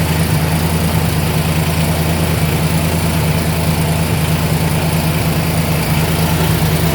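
A donor engine idling steadily while it charges the John Deere GT225's battery through jumper cables.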